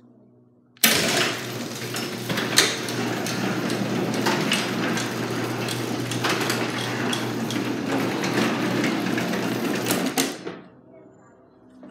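A 1/3 HP Allister Power-Lift garage door opener starts with a clunk about a second in and runs steadily, a low motor hum with many small clicks, as it drives a Wayne Dalton sectional door along its tracks. It stops about ten seconds in.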